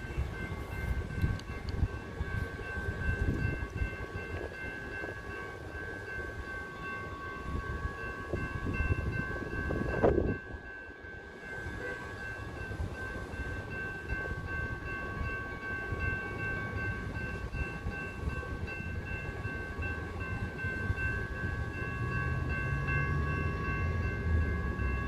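Railroad crossing warning bells ringing steadily beside a stopped freight train of tank cars that is blocking the crossing, over a low rumble. There is a brief louder swell about ten seconds in.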